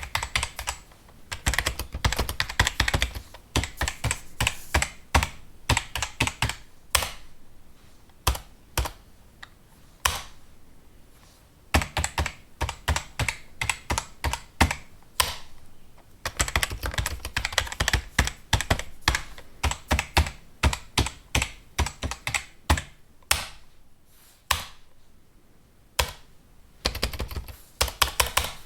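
Fast typing on a computer keyboard: quick runs of key clicks, twice thinning out into slower, spaced single keystrokes before picking up again.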